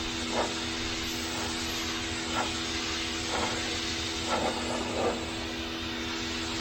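Pressure washer running: a steady motor and pump drone under the hiss of the water jet spraying concrete, with several brief louder surges in the spray.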